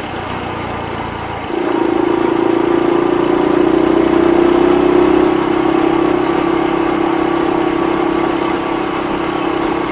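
Honda Super Cub 50's carburetted air-cooled four-stroke single-cylinder engine running under way. It is a little quieter at first, then about a second and a half in it grows louder as the throttle opens and holds a steady note while cruising.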